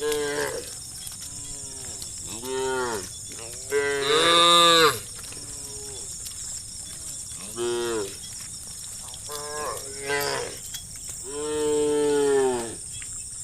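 Cattle mooing: about six separate moos from the herd, some short and some drawn out. The longest and loudest come about four seconds in and near the end.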